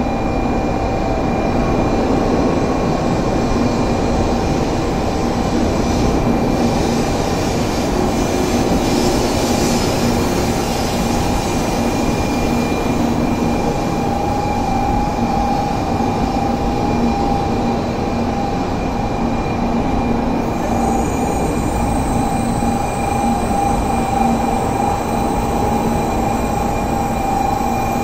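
Shinkansen train at the station, a steady loud rumble with several unchanging whining tones held over it.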